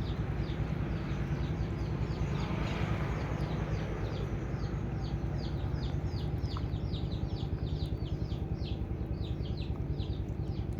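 A bird calling in a rapid series of short, high chirps, each falling in pitch, at about four to five a second and growing busier over the second half. A steady low rumble runs beneath.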